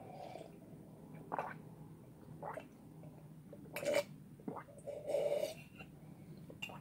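Several quiet sips and swallows from a mug, a second or so apart.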